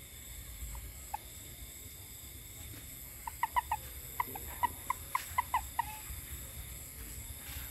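A frog calling at night: a single short cluck or two about a second in, then a quick, irregular run of about a dozen short clucks in the middle.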